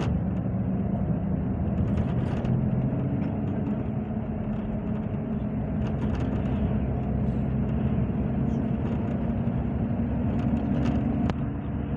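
Road vehicle in motion, heard from inside the cabin: a steady low engine and road rumble with a few faint ticks and rattles.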